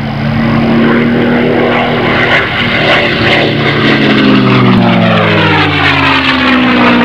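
A propeller airplane's piston engine running loud as it passes by, its pitch dropping as it goes past.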